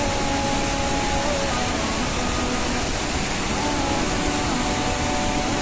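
Steady roar of floodwater pouring through a dam's open spillway gates, with faint music playing over it.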